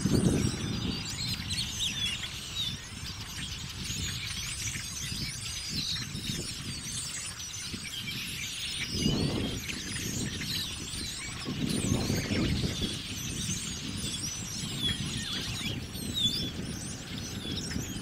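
A huge flock of blackbirds calling all at once: a dense, unbroken chorus of squeaky chirps and whistles. Low rushing swells of noise come and go a few times underneath.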